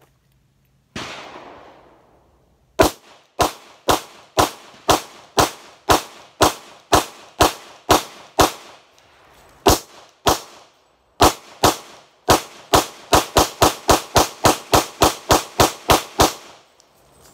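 Glock 23 .40 caliber pistol fired in rapid fire from a 30-round magazine: about thirty sharp shots, first at roughly two a second, then a short break, then a faster run of shots that stops when the magazine runs empty.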